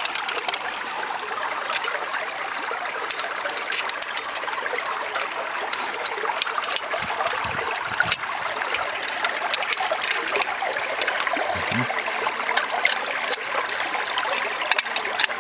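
Fast, shallow irrigation canal water rushing and splashing in a narrow concrete channel, a steady noise with many short sharp clicks scattered through it.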